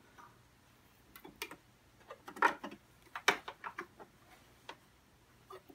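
Scattered light clicks and taps as tweezers and fingers handle the thread and fabric at a sewing machine's needle plate and presser foot.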